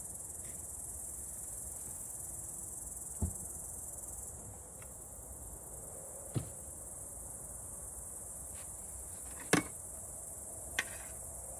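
Steady high-pitched chirring of insects in summer grass, with four sharp knocks of kitchen utensils on the table and pot; the loudest knock comes about two-thirds of the way through.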